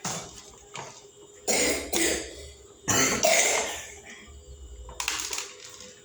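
A person coughing, a few separate coughs spread through the few seconds.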